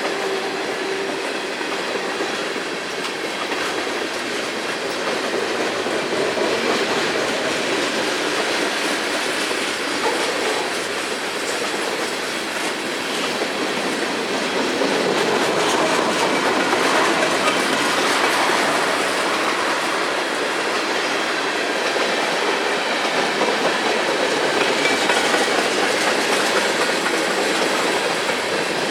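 Freight cars of a long manifest freight train rolling past, steel wheels clicking over the rail joints. The steady noise grows a little louder about halfway through.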